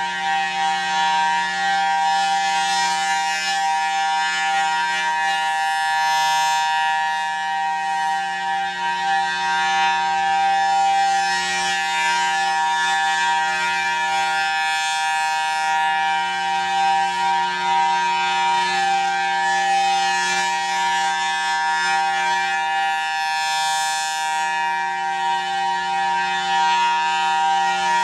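Federal Signal Thunderbolt 1000T rotating outdoor warning siren sounding the alert signal: one steady, unbroken tone at a fixed pitch. The sound turns brighter twice, about six seconds in and again near the end, as the rotating horn sweeps past.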